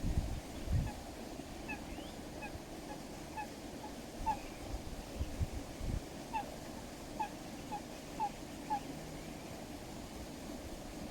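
Eurasian coot giving a string of short, nasal calls, about a dozen, roughly half a second apart, with a pause partway through. Wind knocks on the microphone in between.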